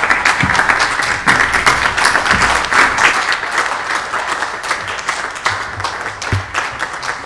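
Applause: many hands clapping in a dense patter that starts right after the speech ends and slowly tapers off toward the end.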